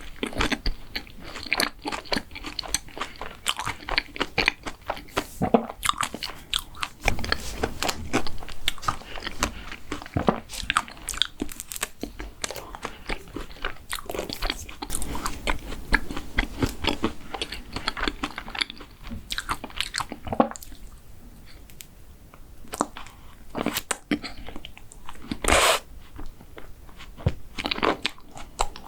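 Close-miked chewing and crunching of crunchy mint chocolate desserts, with many crisp crackling bites. It goes softer for a couple of seconds after the middle, and a sharp loud bite comes near the end.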